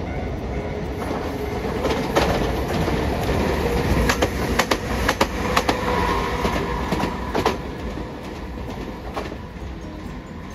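Hiroshima Electric Railway 'Green Liner' tram passing close by, its wheels clacking sharply over rail joints in a run of clicks through the middle, over a steady hum. The sound then fades as it moves away.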